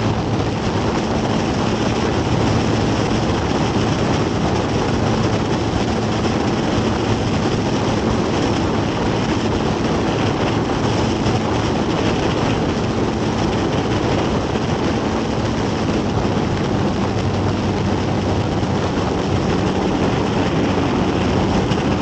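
Murphy Renegade biplane's engine and propeller running steadily in cruise flight, under heavy wind rush from the slipstream over an outside-mounted microphone.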